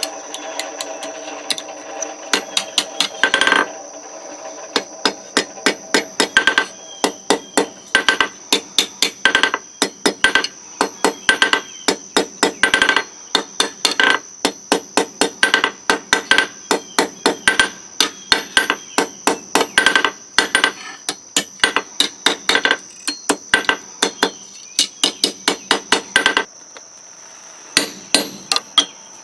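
Blacksmith's hand hammer striking hot steel on an anvil, forging the tines of a heart hook: runs of quick, ringing blows, two or three a second, with short pauses between runs. The hammering stops a few seconds before the end, leaving a steady high whine under a few last taps.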